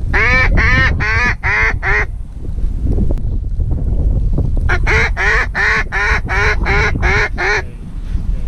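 Mallard hen quacks blown on a duck call: a run of about five loud, evenly spaced quacks, a pause, then a longer run of about nine, calling to circling mallards. A steady low wind rumble underlies it.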